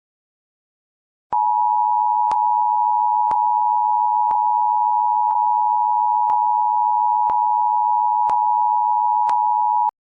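Emergency Alert System attention signal: two steady tones sounding together, starting about a second in after a short silence and cutting off abruptly near the end, with a faint click about once a second. It is the alert tone that marks the start of an emergency broadcast message.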